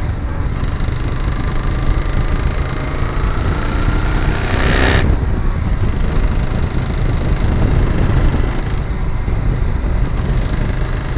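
Honda Africa Twin motorcycle engine running steadily with a knocking sound, with a short burst of noise about five seconds in.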